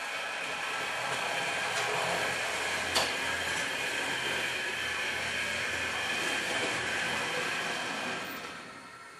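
Trix Express H0 model train running along the track, a steady whine with rolling rumble, and a single sharp click about three seconds in. The sound fades away near the end as the train moves off.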